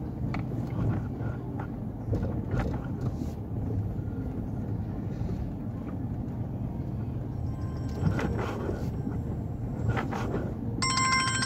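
Car moving slowly, heard from inside the cabin: a steady low engine and road hum with a few light knocks. Near the end a short electronic tone sounds.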